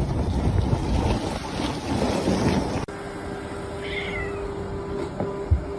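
A rough, even rumble of noise that cuts off abruptly, then one short, high-pitched animal cry, like a meow, about four seconds in.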